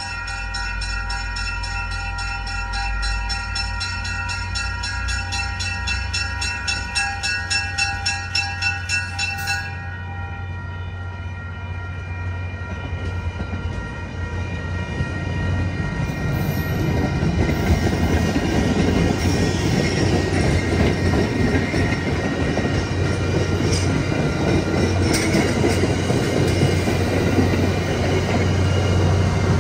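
An MBTA commuter train approaches, its horn sounding a chord of several notes at once for about the first nine seconds before cutting off. The train then rolls past with a growing rumble of wheels on rail, with a few clacks of wheels over rail joints near the end.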